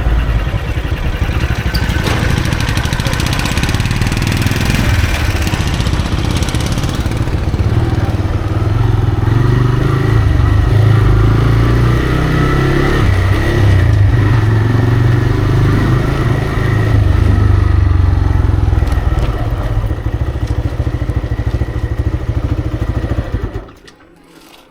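TVS Raider 125's single-cylinder engine running through its stock exhaust on the move, its note rising and falling a little. The sound cuts off abruptly near the end.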